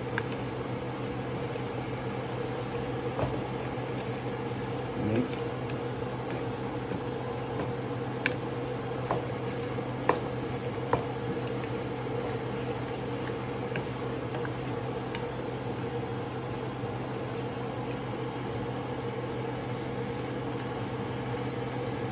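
A pot of beef tripe and potato curry cooking on the stove, with scattered small pops and clicks over a steady low hum.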